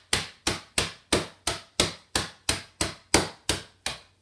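Wooden rolling pin beating rich tea biscuits in a plastic bag on a wooden worktop to crush them. About a dozen steady blows, roughly three a second, stopping just before the end.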